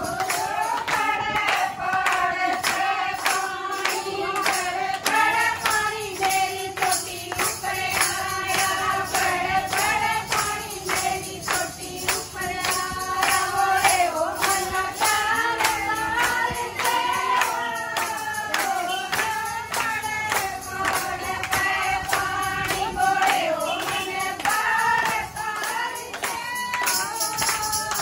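A group of women singing a Shiv bhajan together, kept in time by a steady beat of handclaps.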